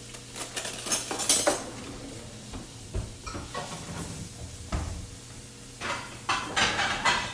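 Scattered clinks and scrapes of a utensil working at a halved pineapple as its flesh is scooped out, with a cluster of scraping near the end, over a steady low hum.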